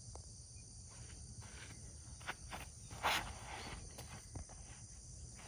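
Outdoor chorus of crickets and other insects making a steady high-pitched drone, with a few faint footsteps and one louder thud about three seconds in.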